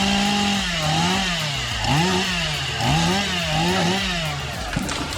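Two-stroke chainsaw running under load, its engine pitch dipping and rising about once a second as it works through the cut, then stopping shortly before the end.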